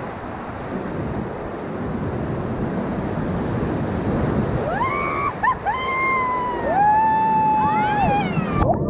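Steady rushing of whitewater river rapids. In the second half come several high, swooping whoops and one long held call from people on the river.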